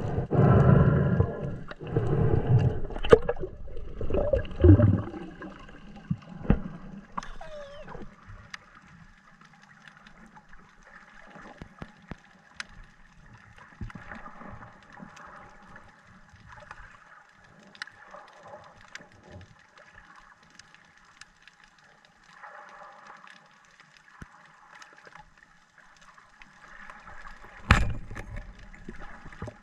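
Underwater sound through the camera: loud low water noise for the first five seconds, then quiet water with faint scattered clicks. Near the end a speargun fires with one sharp, loud snap.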